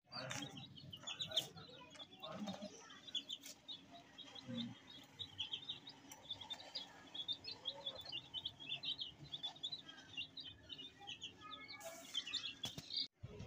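A flock of young chicks peeping: a steady stream of short, high chirps overlapping one another.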